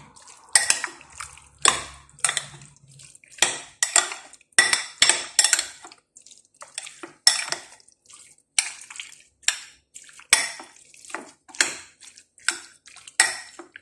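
A metal spoon clinking and scraping against a glass mixing bowl as chicken pieces are stirred, in an uneven run of strokes about two a second.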